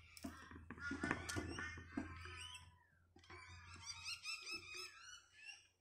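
Faint knocks and rustling as a handheld camera is moved and repositioned, with faint high chirping in the background.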